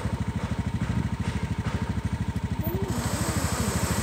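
Small motorcycle engine running at low speed, a rapid, even low putter of about a dozen beats a second.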